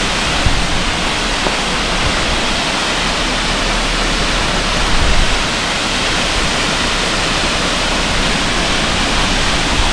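Waterfall close by: a loud, steady rush of falling water that does not let up.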